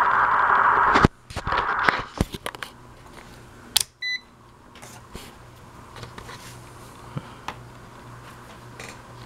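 Digital multimeter's continuity buzzer sounding steadily as the probes touch, cutting off abruptly about a second in. Clicks of the probes being handled follow, with one short beep about four seconds in.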